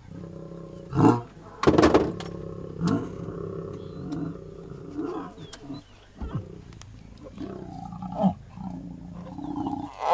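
Lions growling in short, loud bursts, about seven times at uneven intervals, over a steady low hum.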